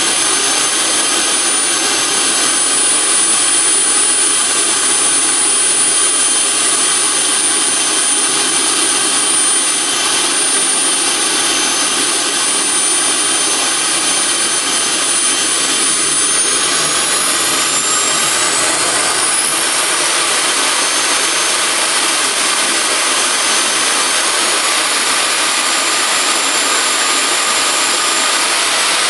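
Small AMT gas turbine jet engine running: a loud, steady jet rush with a high-pitched turbine whine. The whine climbs in pitch about halfway through, then steps up again near the end as the engine speeds up.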